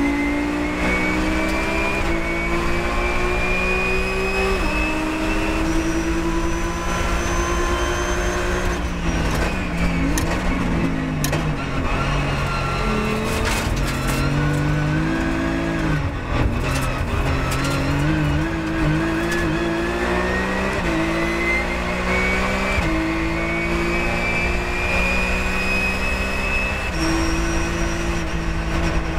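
Porsche 997.1 GT3 Cup race car's flat-six engine heard from inside the cockpit. It rises in pitch through quick upshifts, then falls through downshifts under braking for a slow corner, with a few sharp knocks. It then climbs up through the gears again.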